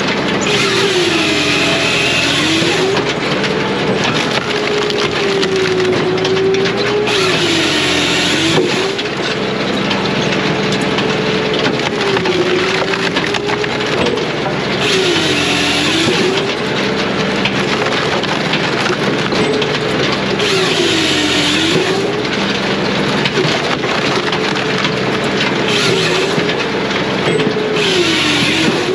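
Brute Force USA 18-24HD diesel firewood processor cutting and splitting hardwood logs. The engine runs steadily, and about every six seconds its pitch sags as the saw takes a cut through the log for a second or two, then recovers; about five cuts in all.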